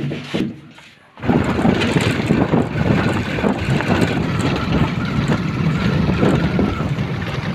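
A few light knocks at first, then from about a second in a vehicle running steadily with wind buffeting the microphone as it travels along a dirt track.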